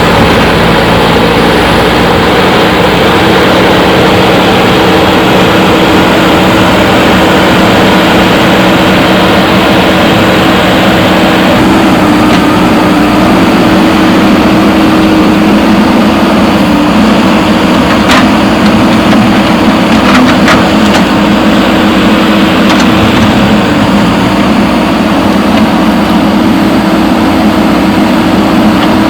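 Diesel engine of a JCB backhoe loader running steadily, with a few faint clicks or knocks in the middle.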